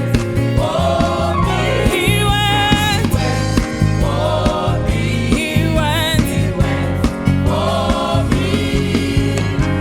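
Youth gospel choir singing with band accompaniment: sustained vocal lines with vibrato over a bass-heavy backing with a steady beat.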